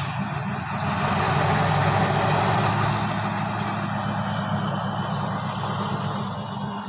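Alsthom diesel-electric locomotive's engine running with a steady low drone.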